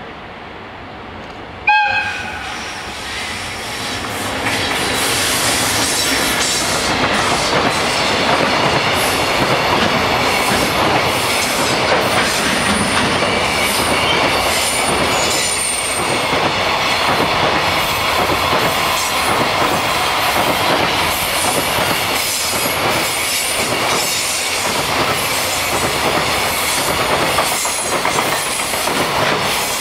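EF210 electric locomotive gives a short horn blast about two seconds in, then passes close by hauling a freight train. The loud rumble of the locomotive and wagons follows, with wheels clicking over rail joints.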